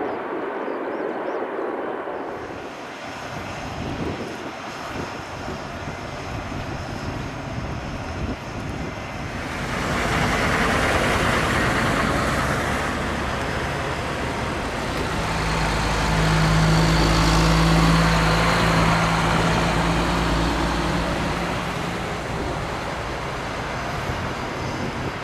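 Military Humvees towing equipment trailers drive past close by. Their diesel engines and tyres are loudest about halfway through as a deep rumble with a steady hum, with jet engine noise from the airport behind.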